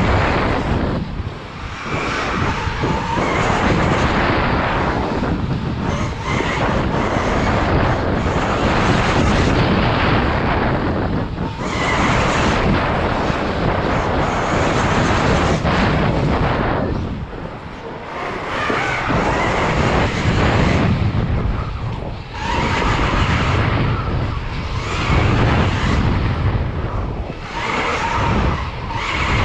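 Electric KTM Freeride dirt bike ridden fast on a dirt track, heard from a camera on the rider: a loud, continuous rush of wind and tyre noise with no engine note. It rises and falls with speed, dipping briefly several times.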